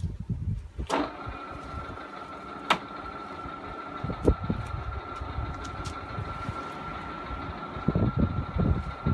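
WMW pillar drill switched on with a click about a second in, then running steadily with a motor hum and a high steady whine. A few light clicks and some low knocks come near the end.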